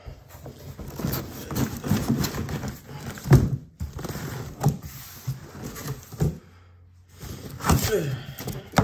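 Cardboard scraping and rubbing as a large LEGO set box is slid out of its cardboard shipping carton, with scattered knocks and one louder thump about three seconds in.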